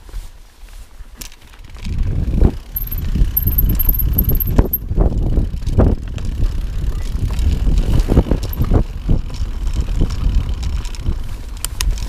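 Mountain bike rolling fast over a rocky trail, its tyres and frame rattling and knocking over the stones. Quieter for the first two seconds, then loud and uneven from about two seconds in.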